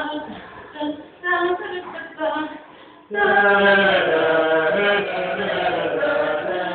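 Choral singing with several voices: short separate sung notes with gaps at first, then about three seconds in a sudden louder, fuller stretch of voices held together.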